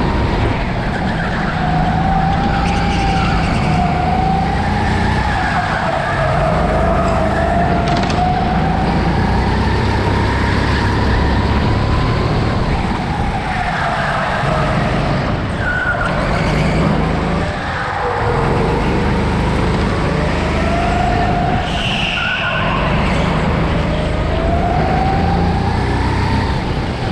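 Rental go-kart lapping hard, heard from on board: a steady whine over a low rumble. The whine rises in pitch as the kart speeds up on the straights and drops as it slows for the corners.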